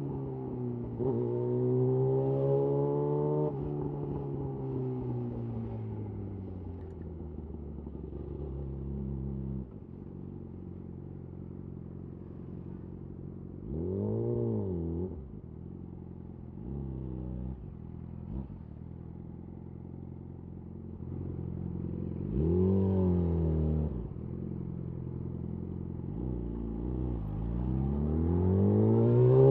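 Yamaha YZF-R6 inline-four through a de-catted Akrapovic slip-on exhaust, ridden at easy speed. It revs up and falls back, runs lower and steadier for a while, gives two short sharp throttle blips a few seconds apart in the second half, then pulls up again near the end.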